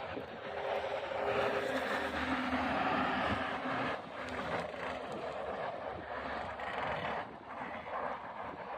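1990 Vespa PX 200's single-cylinder two-stroke engine running as the scooter is ridden. It is louder from about one to four seconds in, then drops to a lower, steady level.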